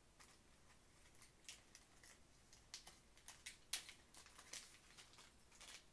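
Faint handling sounds: light clicks and rustles of a plastic zip bag of ballpoint refills and a pen being taken apart to change its refill, with one sharper click a little past halfway.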